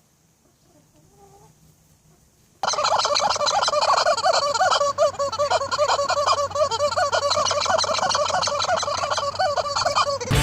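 A flock of poultry calling loudly all at once, many overlapping rapid calls. The chorus starts suddenly about two and a half seconds in, after a fairly quiet opening.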